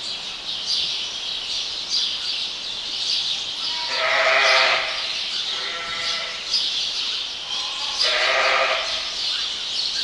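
Sheep bleating in a barn: three drawn-out bleats, about four, six and eight seconds in, over a constant high chirping of small birds.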